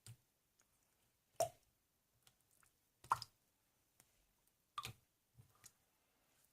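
A handful of short, sharp taps or clicks at uneven intervals, about five in all, the loudest around a second and a half and three seconds in.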